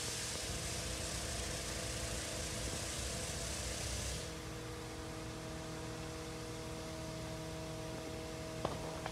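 Fire appliance engine and pump running steadily: a droning hum with a few steady tones under a hiss of water spray. The upper hiss falls away about four seconds in, and a single knock sounds near the end.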